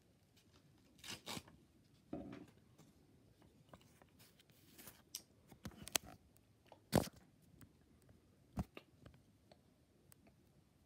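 Scattered clicks, taps and paper rustles from handling objects on a newspaper-covered table, with sharp knocks about 6 and 7 seconds in.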